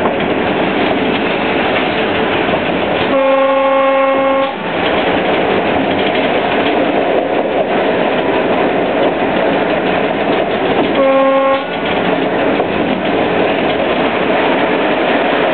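Cab ride aboard a ČD class 754 diesel-electric locomotive running steadily under way. The locomotive's horn sounds twice: a longer blast about three seconds in and a shorter one about eleven seconds in.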